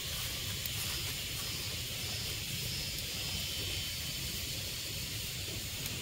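Steady rushing of running stream water.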